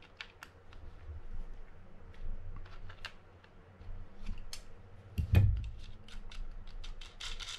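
Small metal clicks and taps of a Mitchell 302 spinning reel's parts being worked loose and handled, with one louder knock about five seconds in.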